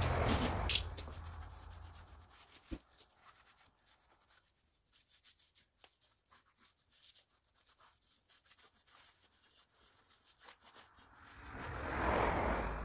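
Cloth rag wiping and rubbing the inside of a steel wheel rim, giving faint scuffs and light rubbing. A louder rush of noise at the start fades within a couple of seconds, and another swells up near the end.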